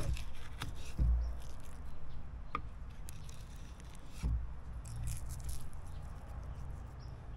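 Fillet knife slicing down through a skin-on steelhead trout fillet onto a bamboo cutting board: small wet cutting and scraping sounds with light taps of the blade, and a few dull thumps as the fish and board are handled.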